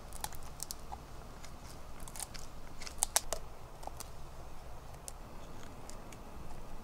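Golden retriever gnawing a stick, the wood cracking and crunching in irregular sharp snaps, loudest about three seconds in.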